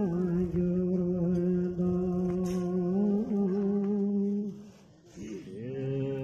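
A man chanting a Buddhist mantra in long, drawn-out held notes, the pitch bending slightly. It pauses for a breath about five seconds in, then resumes on a lower note.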